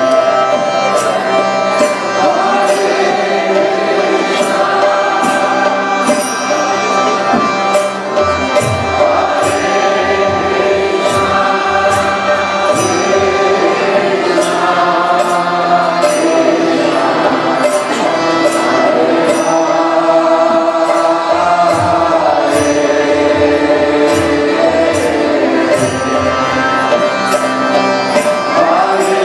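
Kirtan music: a group of voices chanting together over a harmonium's steady reed tones, with hand cymbals striking a regular beat about one and a half times a second and a barrel drum (mridanga) thudding underneath.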